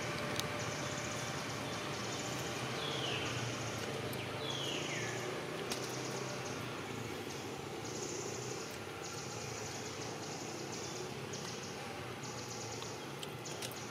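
Forest ambience: insects buzzing high and shrill in repeated on-and-off spells of about a second each, with two short falling calls about three and four and a half seconds in and a few sharp clicks.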